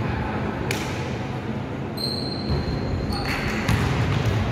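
Basketball bouncing on the wooden-sprung court floor of a sports hall: a few separate sharp thuds that ring on in the hall, over a steady background of hall noise.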